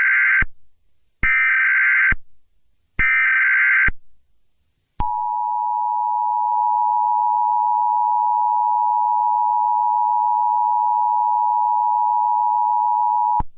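Emergency Alert System tones: three short screeching bursts of SAME header data, about a second each, followed after a gap by the steady two-tone EAS attention signal held for about eight seconds and cutting off sharply. Together they mark the start of an emergency alert message.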